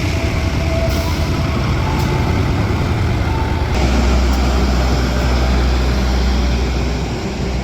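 Steady rumble and noise of a train, heard on board. About halfway through a deep low hum grows louder, and near the end the sound changes abruptly.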